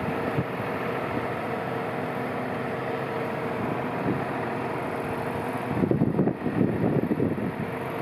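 Tractor engine running steadily. Wind buffets the microphone from about six seconds in.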